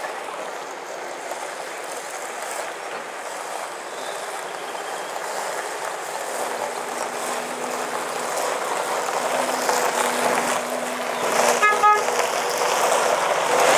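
Single-deck diesel bus pulling away and driving past, its engine growing louder as it comes closer. A brief horn toot sounds near the end as it passes.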